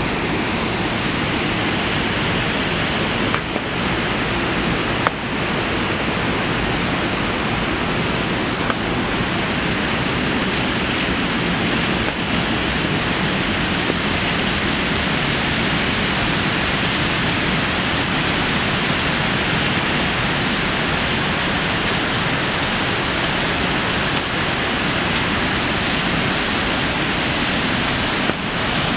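Rushing water of river rapids, a steady loud hiss with no letup, with a few small clicks.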